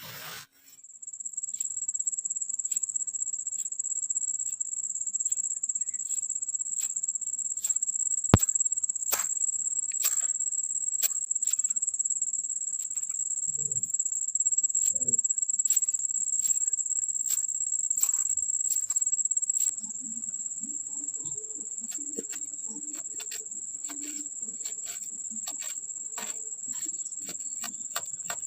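Kinetic sand being handled, giving scattered crisp clicks and crunches over a steady high-pitched tone that sounds like a cricket's trill.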